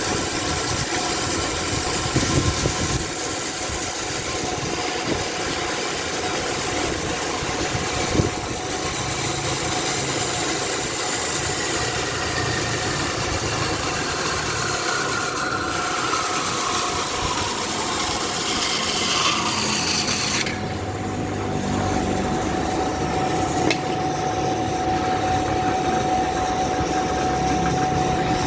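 Engine-driven saw cutting through wood, its pitch slowly sagging under the load. About two-thirds of the way through, the cutting noise drops away suddenly and the engine carries on with a steady lower running note.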